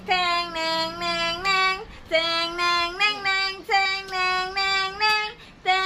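A young child's high voice singing a melody in short phrases of steady held notes.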